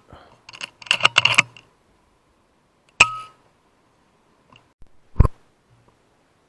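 Shots from a .22 FX Impact M3 PCP air rifle: about a second in, a quick run of metallic clicks as the side lever is cycled to chamber the next pellet, then a sharp shot with a short metallic ring about three seconds in. A second sharp knock follows about five seconds in.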